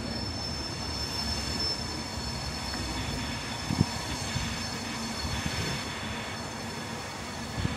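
A rail vehicle running, a steady high-pitched whine over a continuous low rumble, with a single sharp knock a little before four seconds in.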